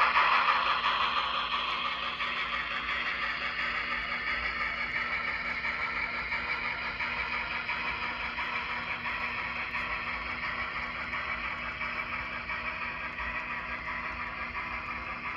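N-scale model train running on the track, its steady rolling rattle gradually fading as it moves away. A faint steady hum sits underneath.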